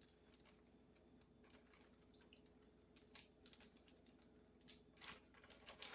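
Near silence, with a few faint clicks and ticks from about three seconds in, from a plastic zipper-top bag being pressed shut.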